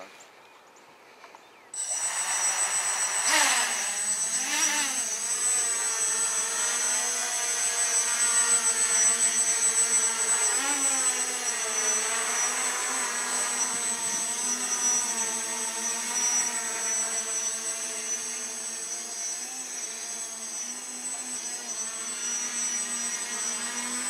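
Quadcopter's four 2212-size 980 kV brushless motors and propellers buzzing in flight, the pitch wavering up and down as the throttle changes. The sound starts abruptly about two seconds in, with a steady high whine above it.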